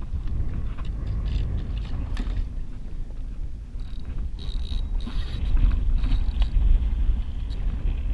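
Steady low rumble of wind and choppy water against a kayak's hull. Over it come scattered light clicks and rattles as a fishing rod and reel are lifted and handled, busier about four to six seconds in.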